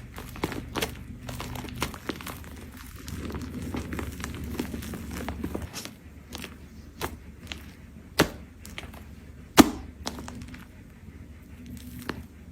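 Scattered light clicks and taps of small objects being handled, with two louder knocks in the second half, over a low steady hum.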